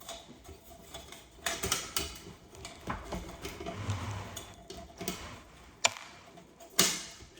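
Old recessed can light's metal parts clicking and rattling as it is worked out of the ceiling: its retaining springs being squeezed and the metal housing knocking as it is pulled free. Irregular clicks every second or so, with a sharper one near the end.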